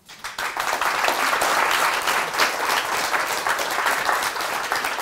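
An audience applauding. Many hands clap densely together; the applause breaks out all at once and keeps up steadily.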